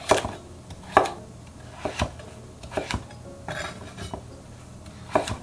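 Kitchen knife cutting kabocha (sweet pumpkin) into bite-size pieces on a wooden cutting board: the blade goes through the squash and knocks sharply on the board about once a second, with a longer pause near the end.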